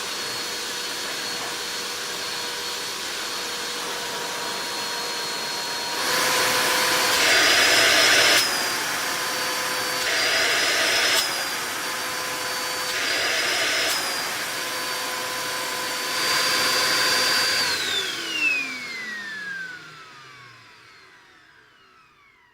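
Amstrad VC3025 bagless cyclonic cylinder vacuum cleaner running with a steady motor whine; four times the airflow rushes louder and the whine rises a little, then a little after the halfway point it is switched off and the motor winds down, its whine falling in pitch and fading.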